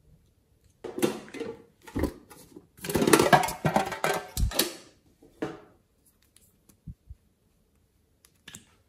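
Hands handling hard plastic toy containers and a small plastic tube: a run of clattering and rustling with a couple of low knocks as things are set down, then a few small clicks near the end.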